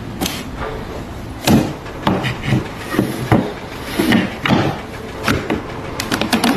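A series of irregular knocks and thuds, a dozen or so, the loudest about a second and a half in.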